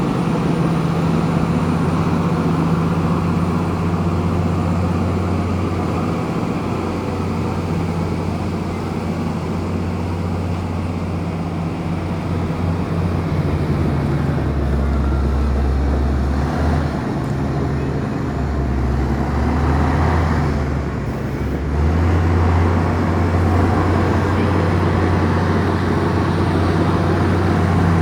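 Komatsu bulldozer's diesel engine running steadily. Its low hum drops lower about halfway through, stays down for several seconds, then rises back near the three-quarter mark.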